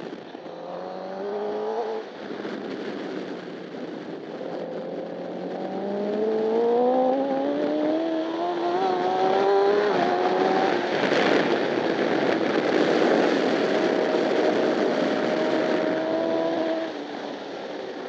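Honda CBR1000RR inline-four engine heard onboard at racing speed. The engine note climbs, drops at a shift about two seconds in, then climbs long and hard. A loud rush of wind and engine noise sets in just past the middle, and the note holds steady before falling away near the end.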